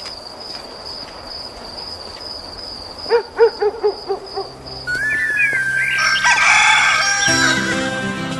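Crickets chirping steadily in the evening; about three seconds in, a chicken lets out a quick run of about seven loud calls, and from about five seconds music comes in.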